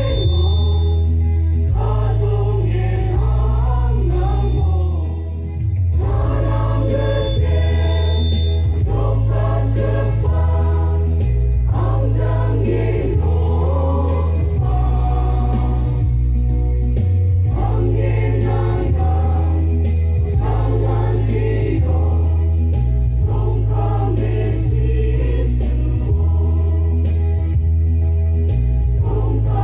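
A church choir of women's voices singing a hymn together through microphones, over a deep bass accompaniment that steps from note to note every second or two. The singing dips briefly about five seconds in, then carries on.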